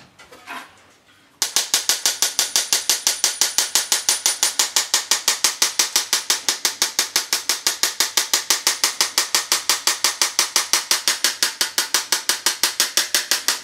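Metal mesh kitchen sieve shaken steadily to push melted white couverture through, rattling in a fast, even run of sharp clicks, about six or seven a second, that starts about a second in.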